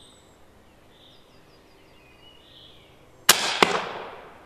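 FX pre-charged air rifle firing an arrow with a sharp report about three seconds in, followed a third of a second later by a second sharp crack as the arrow hits and bursts the balloon target, with a short ringing decay. Faint bird chirps before the shot.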